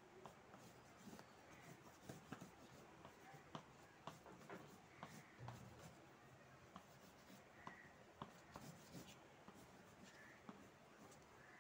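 Faint scratching strokes of a colouring tool on paper, with scattered light ticks, as blue is laid in over the water of a painting.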